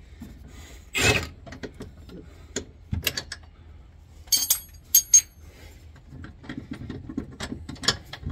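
Metal clicks, clinks and a short scrape as a trailer's factory shock absorber is worked free of its mounting bolt by hand. The loudest is a brief scrape about a second in, followed by a couple of sharp metallic clinks about four to five seconds in.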